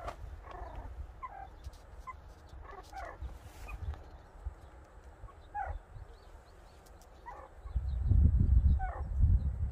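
Short, high barking calls repeated every second or so at irregular intervals, from an animal that is either a distant dog or the alert meerkats. A low rumble comes in near the end.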